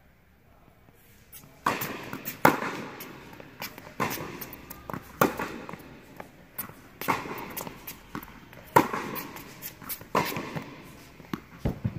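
Tennis rally on an indoor court: sharp pops of racquets striking the ball and the ball bouncing, one about every second or so, each ringing with echo in the large hall. Quieter shoe steps on the court surface fall between them.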